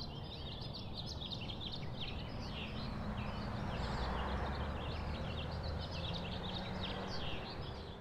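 Many small birds chirping and twittering together over a low, steady rumble of outdoor background noise.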